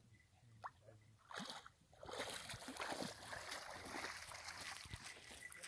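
Water sloshing and splashing around a Newfoundland dog wading in shallow water. It starts faintly about a second in and becomes a steady, crackly wash from about two seconds in.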